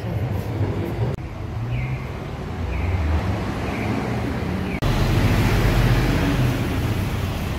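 Street traffic noise: a steady rumble and hiss that changes abruptly about a second in and again about five seconds in, and is louder in the last few seconds.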